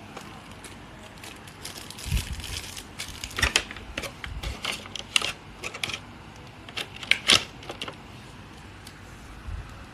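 Handling noises: irregular clicks, taps and short rustles of hard objects being picked up and moved, with the loudest clicks about three and a half and seven seconds in. No clipper motor is running.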